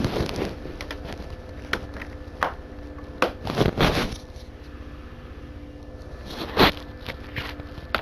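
Plastic DVD cases and discs being handled: scattered clicks, scrapes and rustles, with a sharper knock about six and a half seconds in.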